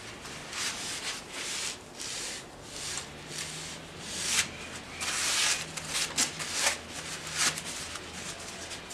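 Hands rubbing on a freshly glued wooden bowl blank in irregular strokes, with a few sharp clicks about six to seven seconds in.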